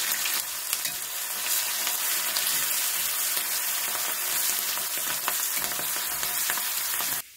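Garlic and cumin sizzling in hot oil in a metal kadhai, with the scraping of a steel spatula stirring them. The frying cuts off suddenly near the end.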